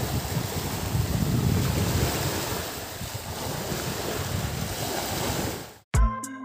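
Wind buffeting the microphone outdoors: a steady rushing noise with gusty low rumble. It cuts off about half a second before the end, and music with a strong beat starts.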